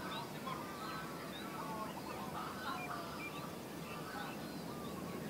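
A crowd of birds calling over one another: short chirps and clipped, honking calls, many to the second. Beneath them runs a low, steady rumble.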